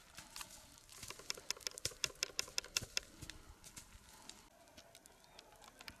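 Dry grass and brush crackling and snapping in a quick run of sharp clicks, densest from about one to three seconds in and thinning out after, as a brush fire is beaten out.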